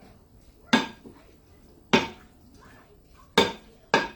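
A utensil knocking against cookware: four sharp clinks with a brief ring, the last two close together.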